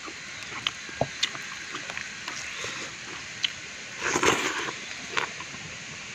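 Eating rice by hand: small wet clicks and squishes as rice is mixed with liquid poured from a bamboo tube, then a louder burst of slurping and chewing about four seconds in as a handful goes into the mouth.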